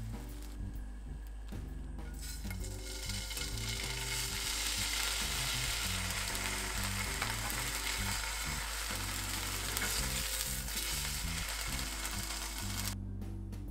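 Two slices of ham sizzling in oil in a nonstick frying pan: a steady hiss that builds up about two seconds in and cuts off suddenly near the end.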